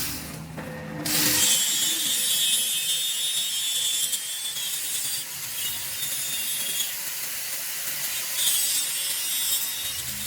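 Power tool cutting back excess weld on the welded steel excavator wheel hub: a steady, harsh, high-pitched grinding that starts about a second in and swells slightly now and then.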